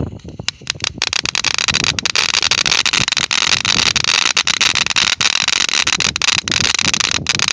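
Firework burning with a loud, steady hiss thick with crackling pops, starting suddenly.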